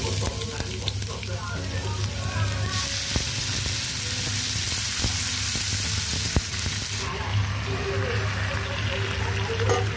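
Sliced shallots, garlic, sausage and red chilies sizzling in hot oil in a non-stick frying pan as they are stir-fried. The sizzle turns brighter about three seconds in and eases back around seven seconds.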